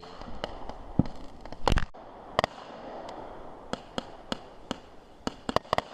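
Fireworks going off in an irregular string of sharp bangs, loudest about two seconds in, with a quick run of cracks near the end.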